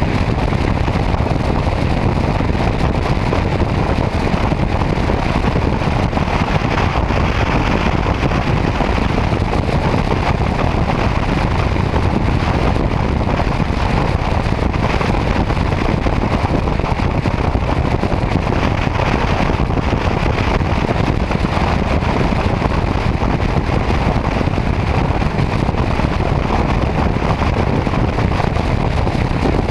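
Motorcycle cruising at highway speed: steady wind rush and road noise on the bike-mounted camera's microphone, with no change in pace.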